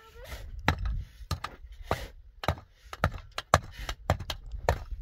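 A regular series of sharp knocks, hard objects striking one another about every half-second.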